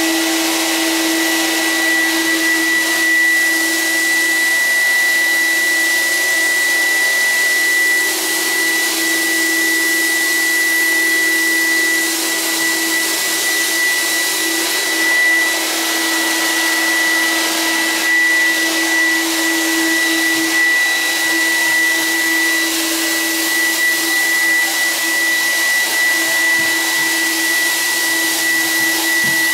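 Electric nebuliser (cold fogger) running steadily, blowing insecticide mist out through a hose to treat the air against scabies mites. A constant high whine and a lower hum sit over the rush of air.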